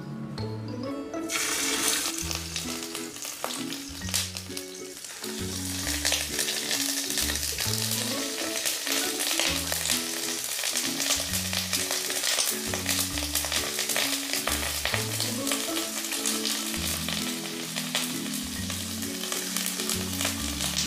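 Raw chicken pieces sizzling and crackling in hot cooking oil, starting about a second in and growing fuller as more pieces go into the pan, over background music.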